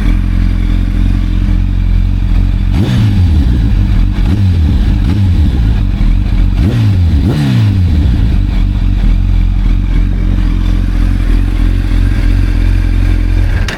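2007 Kawasaki ZX-10R's inline-four idling through an Akrapovic exhaust, with quick throttle blips about three to four seconds in and two more around seven seconds in, each rev dropping straight back to idle.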